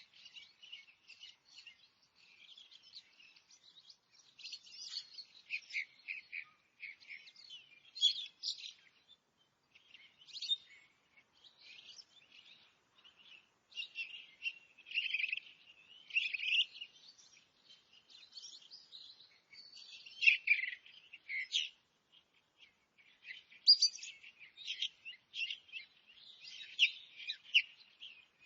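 Several songbirds singing and chirping together in a forest chorus: dense, overlapping short chirps and trills, high in pitch, with no pause longer than a moment.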